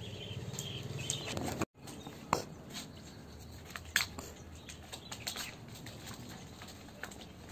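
Dry coconut palm fronds rustling and clicking as the leaflets are handled and woven, with scattered sharp ticks from the stiff leaflets.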